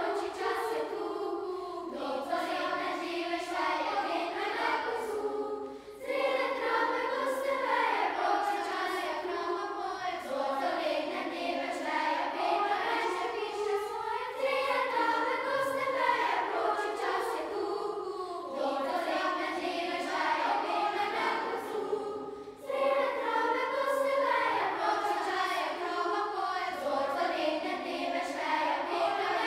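Youth choir of primary-school children singing. The singing runs in long phrases, with brief breaks about six seconds in and again near twenty-two seconds.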